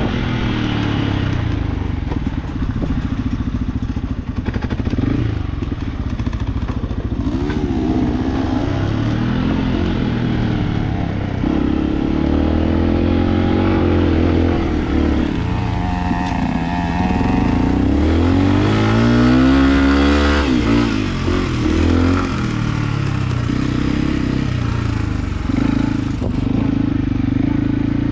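Enduro dirt bike engine running hard off-road, the revs rising and falling again and again with the throttle. About two-thirds of the way through, one long climb in pitch drops off suddenly.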